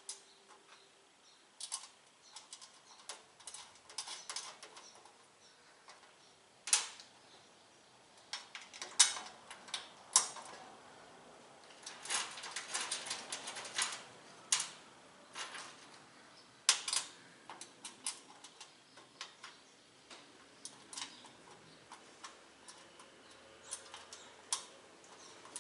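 Irregular small metallic clicks and taps of Phillips-head screws and 10 mm nuts being fitted and tightened into the steel base of a tool cart, a few sharper clacks among them.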